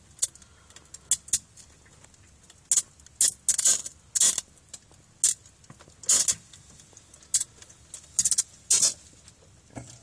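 Freezer sizzling in short, irregular hisses, about a dozen in ten seconds, with meltwater dripping behind its bottom grille.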